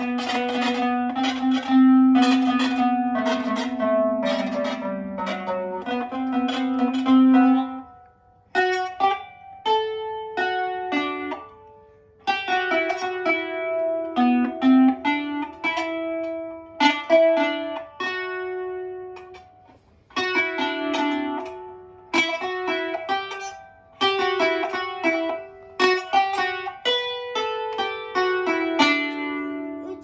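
Kanun, the Turkish plucked zither, played with finger picks: phrases of plucked notes that ring and fade, broken by brief pauses.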